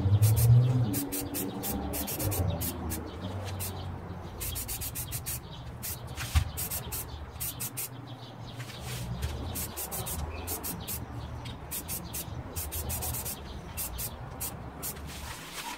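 Aerosol spray paint can hissing in many short, quick bursts as light coats of paint go onto a rifle, over a low rumble and some handling knocks.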